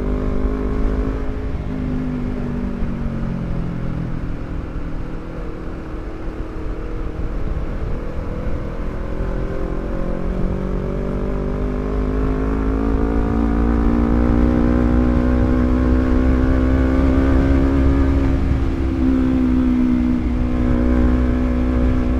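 Honda CBR250RR motorcycle with a Villan MV2 carbon forged full-system exhaust, ridden at moderate revs. The exhaust note dips briefly, holds steady, then climbs gradually over several seconds as the bike accelerates, and eases off slightly near the end.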